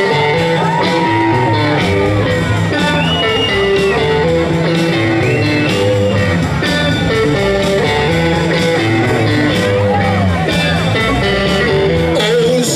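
Live rock band playing electric guitar over bass and drums, with a steady beat.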